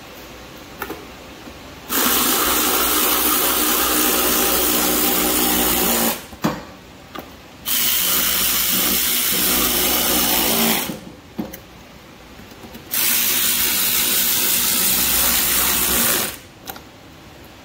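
Cordless electric ratchet running bolts, its motor spinning steadily in three runs of about three to four seconds each with short pauses between.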